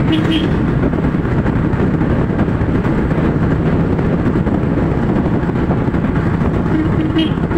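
Steady engine rumble and wind noise from a vehicle driving along a road. A short horn toot sounds just after the start and again near the end.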